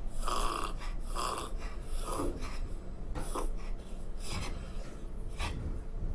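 A dog's goose-honk cough: a run of about six hoarse, honking coughs about a second apart, the later ones weaker. It is a dry cough of the kind caused by a narrowed airway, above all a narrowed trachea.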